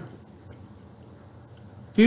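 Quiet room tone: a faint, even background hiss with a low hum, and no distinct sound events.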